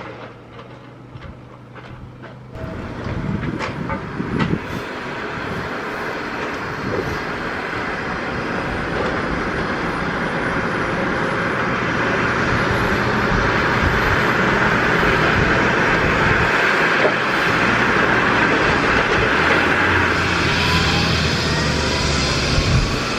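Agusta AW109 helicopter turbine engine starting up. It is fairly quiet for the first couple of seconds, then the engine noise comes in suddenly and grows steadily louder, with a high whine climbing in pitch as the turbine spools up.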